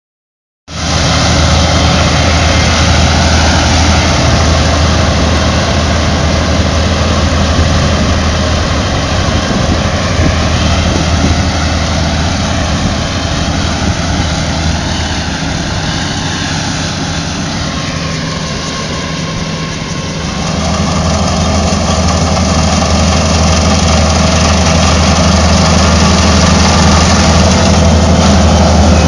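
Kubota rice combine harvester running in the field: a steady low engine hum with the whirring of its threshing machinery. It fades somewhat past the middle and grows louder again about two-thirds of the way through.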